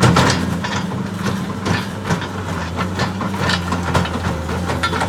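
New Holland L170 skid steer's diesel engine running steadily, with irregular clanks and rattles from the machine throughout.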